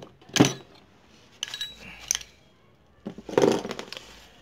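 Steel gearbox parts (shift forks and shift drum) clinking and scraping against each other and the aluminium crankcase as they are fitted by hand. There are single sharp clinks about half a second in and again around one and a half and two seconds, then a short cluster of clatter a little after three seconds.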